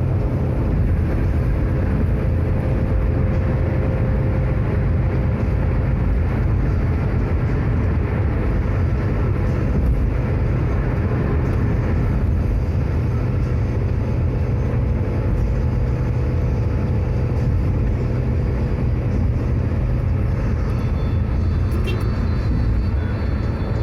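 Steady road noise of a car driving at speed on a motorway, heard from inside the cabin: an even, deep rumble of tyres, engine and wind.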